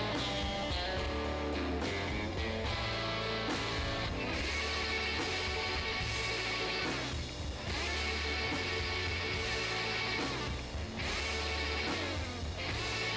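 Background music: an instrumental rock track led by guitar, over a steady beat.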